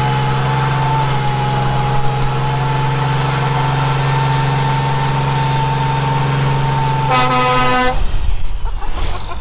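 A steady, pitched vehicle drone that holds one note for about seven seconds. It turns brighter for under a second and then stops abruptly about eight seconds in.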